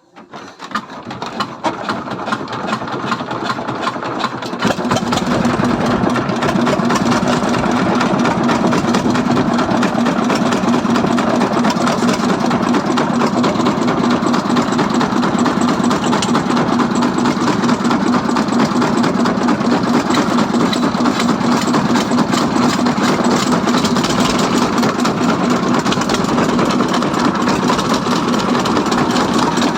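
Jiangdong diesel boat engine starting: the sound builds up over the first four or five seconds as it comes up to speed, then it runs steadily with an even, strong hum.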